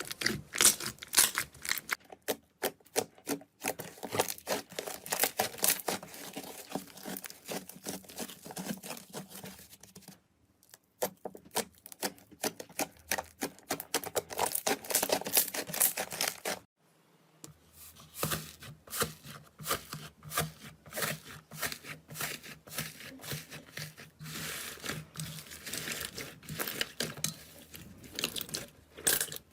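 Slime being squeezed and pressed by hand, giving dense, irregular crackling and popping clicks, with two short silent breaks between takes.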